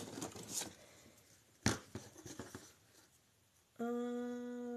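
Ribbon rolls being handled: soft rustling and one sharp click about a second and a half in. Near the end comes a steady, level-pitched hummed 'mmm', held for about a second.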